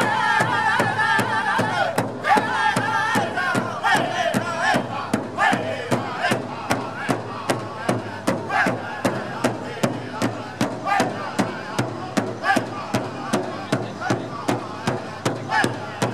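Pow wow drum group beating a large hide drum together in a steady, even beat, with singers' high wavering voices. The singing is strong for the first few seconds, then thins to scattered voices while the drumming carries on.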